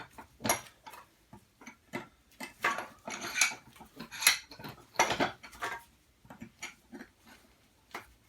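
Scrap copper and brass being handled and cut by hand: irregular metallic clinks and clicks, with a cluster of louder strikes in the middle.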